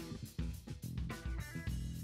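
Background music with a steady drum-kit beat, bass and guitar.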